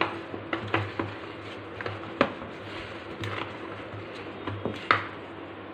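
A spoon scraping and knocking against a glass bowl as flour and water are stirred together into a dough, in irregular clicks and short scrapes.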